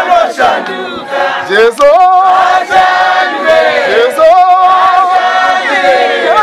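A group of men and women singing together as a choir, several voices holding long notes in unison.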